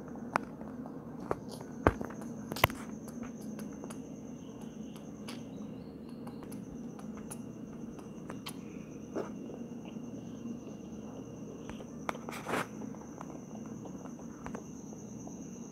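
Faint background hum under a steady high-pitched whine, broken by a few sharp clicks and knocks from the camera being handled. The loudest two come about two seconds and nearly three seconds in, and a softer one near the end.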